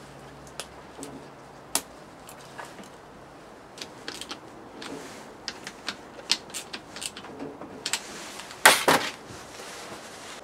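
Scattered clicks, taps and clinks of hand tools and metal parts being handled during motorcycle engine work, with a louder short clatter about nine seconds in.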